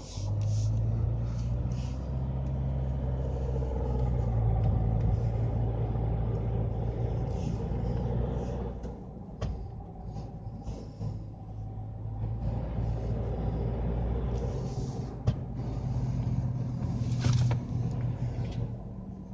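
Mercedes-Benz B-Class with a CVT automatic gearbox pulling under acceleration: a low, steady grinding rumble that drops away for a moment about nine seconds in, then returns, with a few sharp clicks. The grinding when accelerating is the fault being shown, blamed on the CVT.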